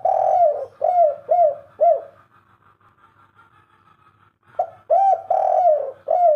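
Spotted dove cooing: a long drawn coo followed by three short coos, the 'kuk 3' ending. After a pause of about two and a half seconds the next phrase begins, a short coo, a long coo and again three short coos.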